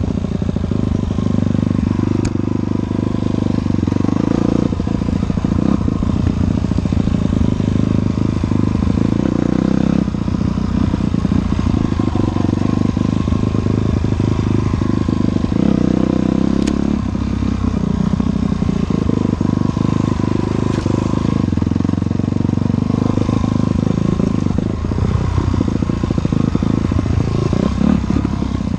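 Dirt bike engine running continuously, its pitch rising and falling with the throttle, heard from the rider's helmet camera, with a couple of sharp clicks.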